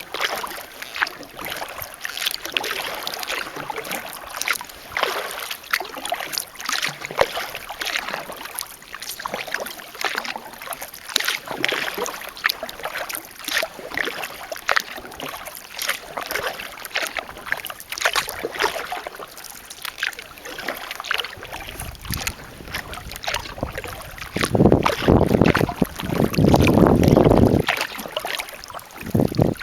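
Kayak paddle strokes: water splashing and dripping off the blades in an irregular rhythm. In the last several seconds, wind gusts buffet the microphone with a loud low rumble.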